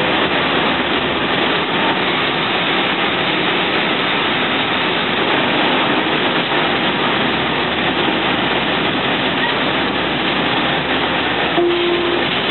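Steady engine and road noise inside a moving city bus's cabin. A short steady tone and a faint knock come about a second before the end.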